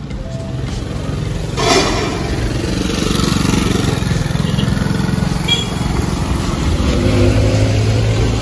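Road traffic: motor vehicles passing close by, their engines humming, with a loud swell of passing noise about two seconds in.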